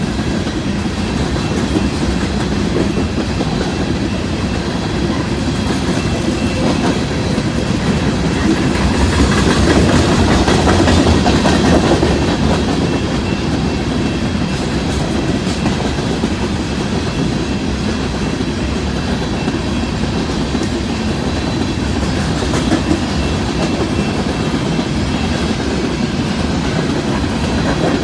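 Empty coal train rolling past: a steady rumble with wheels clattering over the rail joints, swelling a little louder about ten seconds in.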